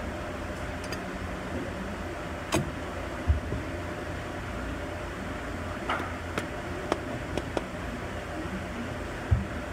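A steady low mechanical hum with a faint constant tone, broken by a handful of short, sharp clicks and taps scattered through it.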